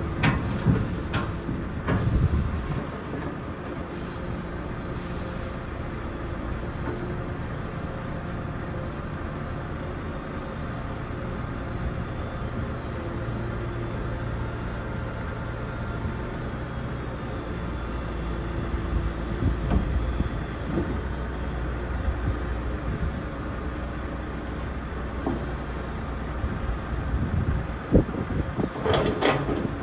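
A roughly 30-year-old Komatsu PC210 hydraulic excavator's diesel engine running steadily under load as the machine crawls up onto a steel lowboy trailer deck, pushing with its boom. Its engine note shifts partway through, and there are sharp metallic clanks at the start and again near the end.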